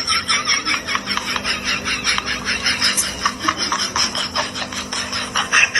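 Rapid, rhythmic scratching, about five quick strokes a second, kept up without a break.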